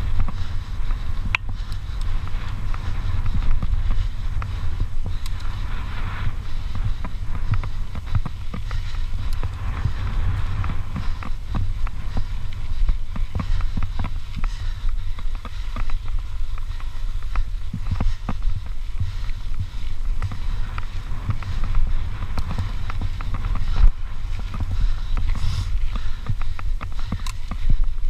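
Mountain bike rolling fast over a rough dirt trail, its tyres and frame rattling with frequent small knocks and clicks, under a steady low rumble of wind buffeting the camera microphone.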